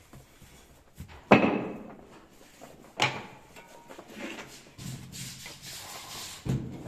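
A metal brick mould knocked down hard on a wooden pallet to release a freshly moulded brick: a sharp bang about a second in and a second knock a couple of seconds later. Then the empty mould is scraped clean with a hand scraper, with another knock near the end.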